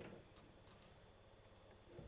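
Near silence: quiet room tone on stage, with a few faint, short clicks.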